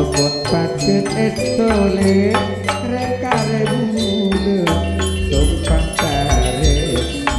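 Gamelan ensemble playing a gending: struck metal keyed instruments ringing, kendang drum strokes in the low end, and a male voice singing long gliding lines through a microphone.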